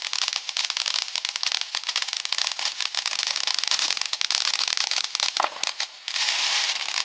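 Brothers Whale of a Tale fountain–aerial hybrid firework giving off dense crackle: many rapid small pops over a steady hiss. It slackens briefly about six seconds in, then surges again.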